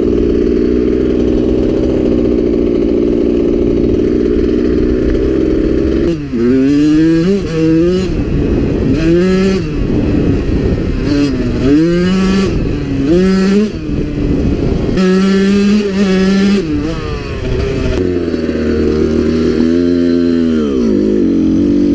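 2001 Suzuki RM80's 80cc two-stroke single-cylinder engine under way, holding a steady note for the first several seconds, then revved up and down repeatedly with the pitch rising and falling many times. Near the end the revs drop low and then climb again.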